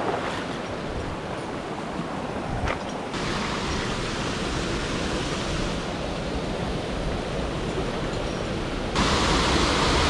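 Steady rushing of a mountain stream's water, a constant hiss-like wash that jumps louder abruptly about three seconds in and again near the end.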